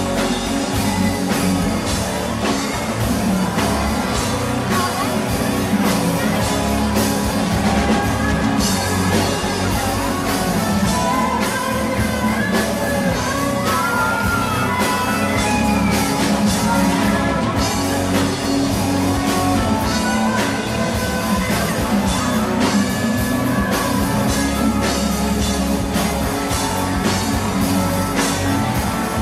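Live rock music played by a band on electric guitar and drum kit, with singing.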